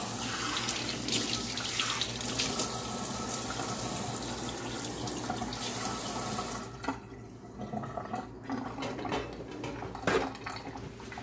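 Kitchen sink tap running steadily while hands are washed under it, then shut off about two-thirds of the way through. Afterwards come quieter handling sounds and a single sharp knock near the end.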